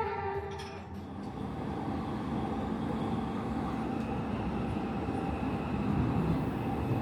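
Steady rumbling noise with a faint hum, with no music or speech over it.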